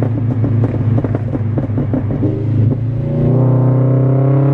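Scion FR-S flat-four exhaust crackling and popping rapidly over a steady engine drone as the car coasts off throttle, the pops caused by a pop-and-bang tune. About three seconds in the popping stops and the engine pulls up under throttle, its pitch rising steadily.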